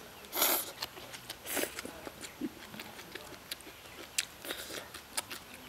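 A person slurping rice noodles: two loud slurps in the first two seconds, then chewing with small wet clicks.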